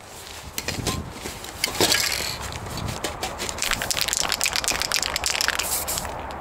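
Crunching footsteps on loose, rough ground, made up of many small irregular crackles and loudest about two seconds in.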